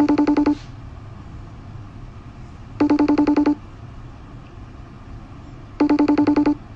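Electronic telephone ringing: three short trilling bursts, each a quick run of about a dozen beeps a second, spaced about three seconds apart.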